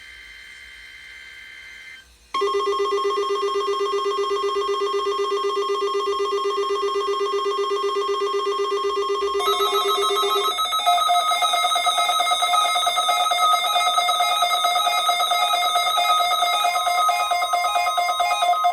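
NOAA Weather Radio test alert tones. Faint data-burst tones for about two seconds give way to a loud, steady, fast-wavering two-note alarm tone. About nine seconds in, it shifts to a higher pair of pulsing tones, the alarm signal of the weekly test.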